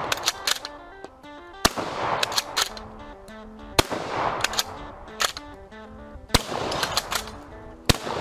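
Steyr Mannlicher 88/90 straight-pull rifle in 8x50 firing four shots, roughly every two seconds, each trailing off in a short echo. Its straight-pull bolt clacks as it is worked between shots, under background music.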